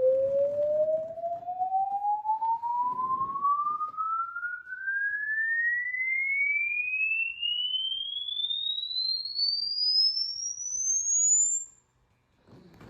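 Signal-generator sine-wave sweep played through a JBL L19 speaker: one pure tone rising steadily in pitch from a mid tone to a high whistle, cutting off shortly before the end.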